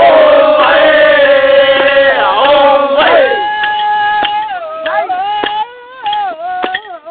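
Manggarai danding song: a group of voices chants one long held note. Just after three seconds in, the note falls away and a single voice takes up a solo line with sliding, ornamented turns of pitch.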